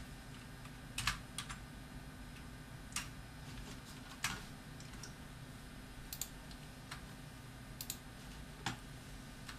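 Computer keyboard keys pressed in short, scattered strokes, around ten separate clicks spread over several seconds, over a faint steady hum.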